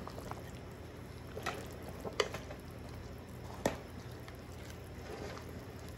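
Wooden spoon stirring chicken pieces in simmering broth in a large metal pot: liquid sloshing, with three sharp knocks of the spoon against the pot between about one and a half and four seconds in, over a steady low hum.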